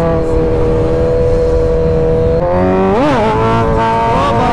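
Kawasaki Z1000's inline-four engine running at high, steady revs under way. About two and a half seconds in its note steps up in pitch, and shortly after it gives a quick rise and fall before holding the higher note.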